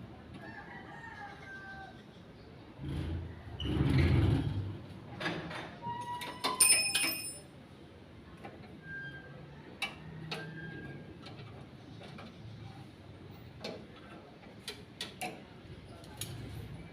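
Metal clanks and knocks from repair work on a stock pot, with a louder scraping noise for about two seconds and one clang that rings out briefly about seven seconds in, then scattered light taps.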